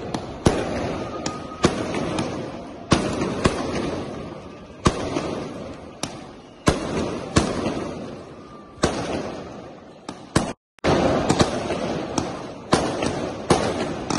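Aerial fireworks bursting overhead: a string of sharp bangs at uneven intervals, roughly one a second, each trailing off in a long echoing decay. The sound cuts out completely for a moment about ten and a half seconds in.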